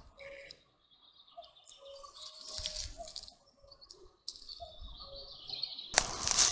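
Small birds singing and chirping in woodland, a mix of high twittering calls and short lower notes. Near the end a sudden louder rustling noise starts.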